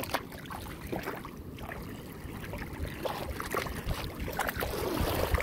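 Shallow water sloshing and splashing around a person wading, with a low wind rumble on the microphone and scattered small splashes.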